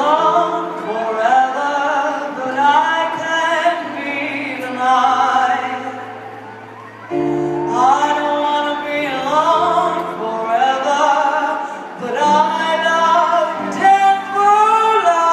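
A woman singing a slow ballad live over instrumental accompaniment, heard through an arena's sound system; her voice slides and bends through drawn-out notes, with a quieter moment about halfway before the music swells again.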